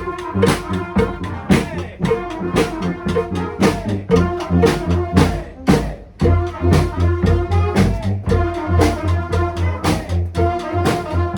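Street brass band playing: horns holding sustained notes over a steady, driving drum beat with bass drum. The beat breaks off for a moment about halfway through, then picks up again.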